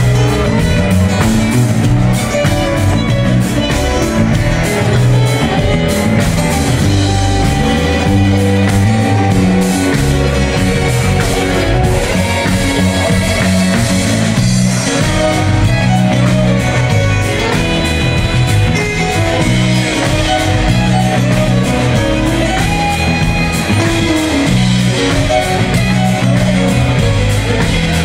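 A band playing live: an instrumental stretch with plucked strings, a walking bass line and a drum kit, and no singing.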